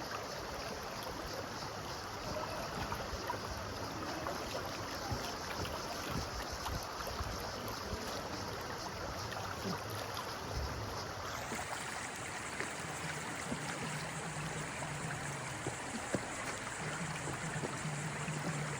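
Steady rush of a flowing mountain stream.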